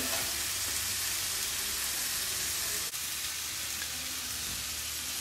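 Vegetables and masala sizzling in oil in a kadai on a gas stove as boiled noodles are tipped in: a steady, even hiss, with one brief click about three seconds in.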